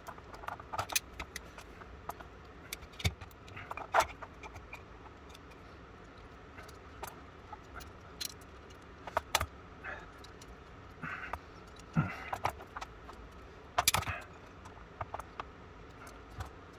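Scattered metal clicks and clinks from steel locking pliers being worked and clamped onto a pistol lock to compress its spring, with a few sharper knocks about four, twelve and fourteen seconds in.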